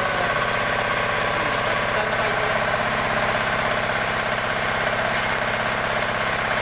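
18 hp diesel engine for a sawmill running steadily on test, with an even, rapid firing beat.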